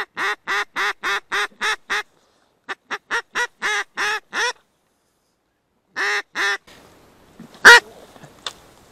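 Mallard-hen quacks blown on a duck call: loud runs of quacks at about four a second, two runs of about seven and then two more. Near the end a single shotgun shot, the loudest sound, followed by a fainter sharp click.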